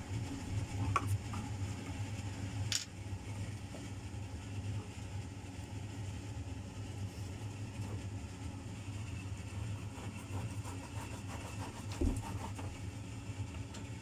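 Steady low mechanical hum, like a fan or motor running, with a few faint clicks and a single soft knock about twelve seconds in.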